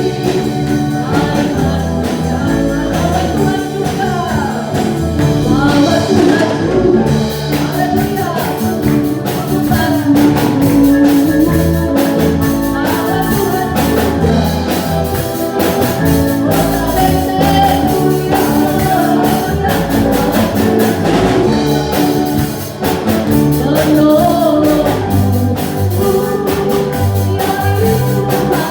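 Christian worship song sung in Indonesian: singing over instrumental band accompaniment with a steady beat.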